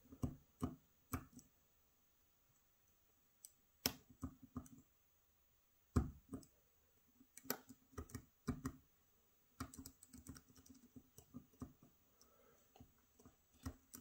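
Faint, small clicks and taps of a hook pick working the pin stacks inside a Gege AP3000 lock cylinder during single-pin picking, in irregular clusters with a quiet spell about two seconds in.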